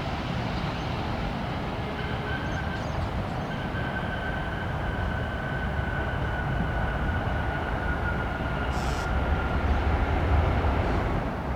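Jet airliner engines: a steady whine that falls slightly in pitch over several seconds over a broad rush of engine noise, with a low rumble swelling near the end.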